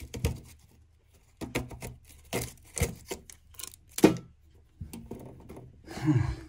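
Irregular clicks and knocks of hands working red and black meter tails and a red plastic fitting jammed behind a consumer unit, the loudest knock about four seconds in, with a longer scrape near the end.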